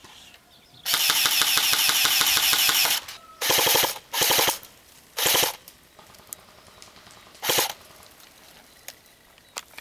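M4-style airsoft rifle firing on full auto: one long burst of about two seconds, then four short bursts.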